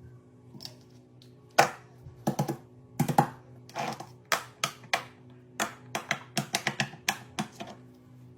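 Fidget toy being pressed and popped: a run of sharp, irregular clicks, starting about a second and a half in and coming in quick clusters, over faint steady background music.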